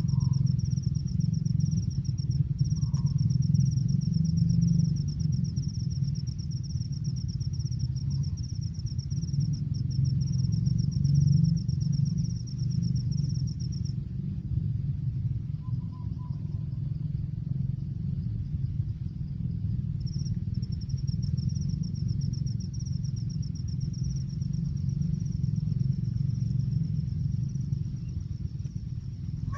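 Steady low rumble with an insect's high, rapidly pulsing trill over it; the trill stops about halfway through and starts again some six seconds later.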